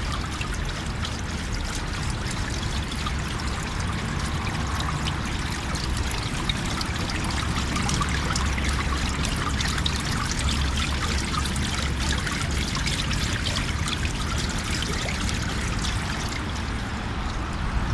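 Water in a shallow rectangular pool water feature, trickling and flowing steadily, with a low rumble of wind on the microphone underneath.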